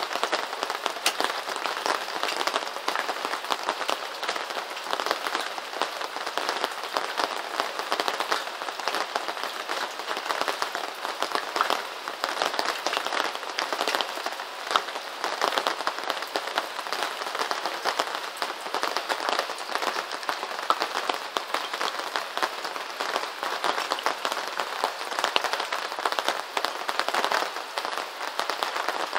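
Steady rain, a dense hiss of many close drop impacts that keeps an even level throughout.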